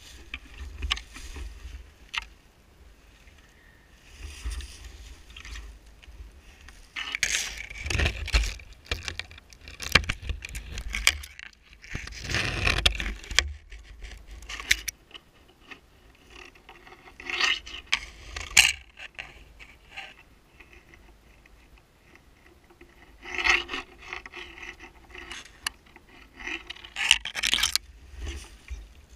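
Fir branches and dry brush rustling and scraping as hands push through them, in irregular bursts with sharp snapping clicks, the loudest stretch about 7 to 13 seconds in.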